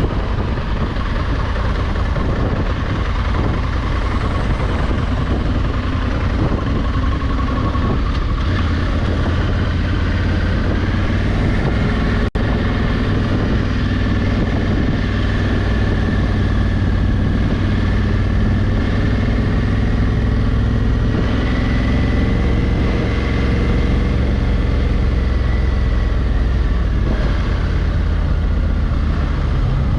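Honda Africa Twin 1100's parallel-twin engine running steadily under way, its pitch drifting gently up and down, with wind and road noise on the microphone.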